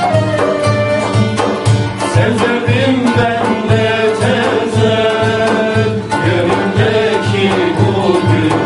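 A Turkish ensemble plays a religious hymn (ilahi). A man sings over plucked kanun and bağlama and a ney flute, while frame drums keep a steady beat about twice a second.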